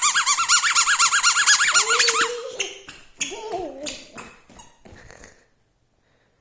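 Rapid string of high-pitched squeaks, about nine a second, for about two seconds, from the squeakers in a toddler's walking shoes. Softer, fainter squeaks follow and trail off.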